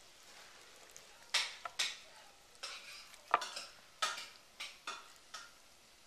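Short rustling and scraping handling sounds, about a dozen irregular strokes starting about a second in, as a whole raw chicken is opened up and handled on the counter.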